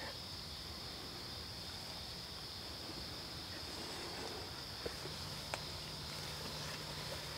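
Crickets chirping at night, a steady high trill. Two faint clicks come about five seconds in, and a faint low hum joins near the same time.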